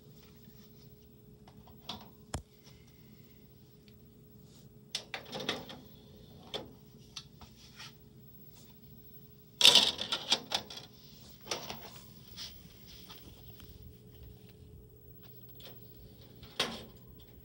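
Scattered clicks and clunks of a DVD being handled and loaded into an Insignia TV-DVD combo's disc tray, with the loudest cluster about ten seconds in and a faint steady hum underneath.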